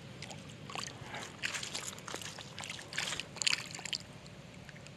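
Soft, irregular little splashes and sloshing in shallow water, a handful in a few seconds, as an escaped bluegill flaps at the water's edge and swims off.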